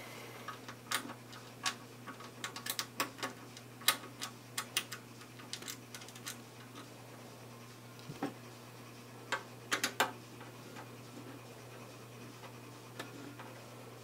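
Small irregular clicks and ticks of the side-panel screws being put back in and turned at the rear of a Dell Inspiron 3668 desktop case. The clicks come thick and fast at first, then only a few later on, over a faint steady low hum.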